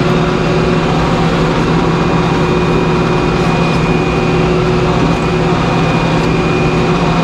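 Sawmill machinery running steadily: a constant engine hum with a thin, steady high whine over it.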